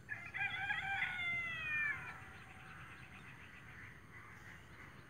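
A rooster crowing once, a wavering call of about two seconds that falls in pitch as it ends.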